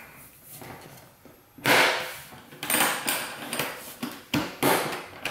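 Handling noise: about five knocks and bumps as hard objects are moved and set down. The loudest comes a little under two seconds in.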